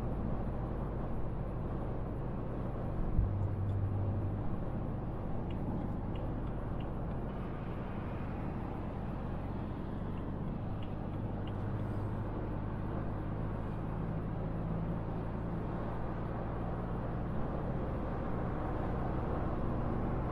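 Inside the cabin of a BMW E90 328i cruising: a steady low hum from its straight-six engine on the stock exhaust, mixed with tyre and road noise. There is a brief low thump about three seconds in.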